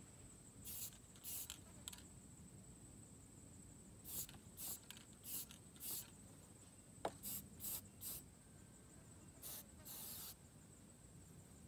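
Aerosol spray-paint can hissing faintly in about a dozen short bursts, several clustered at a time, over a steady thin high-pitched whine.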